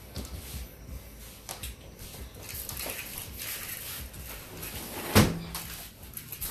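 Faint handling noises, then a single sharp knock about five seconds in, like a hard object set down or a cupboard door shutting.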